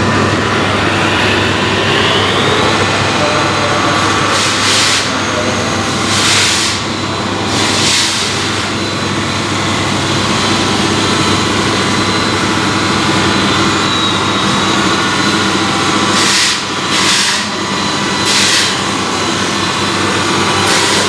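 Radio-controlled model trucks running: a steady electric motor and gear whine that rises in pitch about two seconds in, broken by several short hissing bursts.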